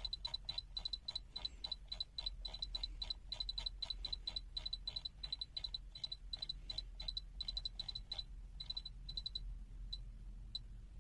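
Short high-pitched clicks from a function generator's frequency knob being turned step by step, several a second in uneven runs. They thin out to a few isolated clicks near the end.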